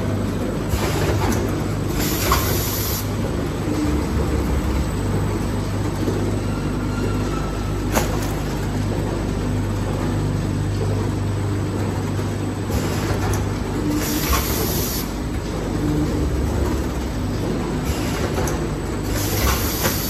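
Vertical form-fill-seal packing machine running as it bags washing powder: a steady hum with several short hisses and a single sharp clack about eight seconds in.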